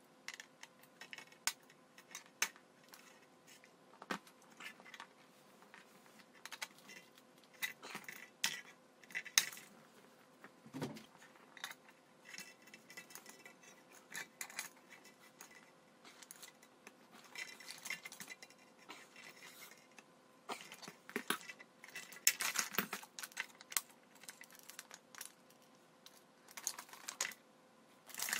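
Irregular metal clicks and clinks of pliers and an adjustable wrench on the nut and fittings of a plastic-bottle pinwheel's hub, mixed with crackling of the thin plastic blades as they are handled. A duller knock comes about eleven seconds in.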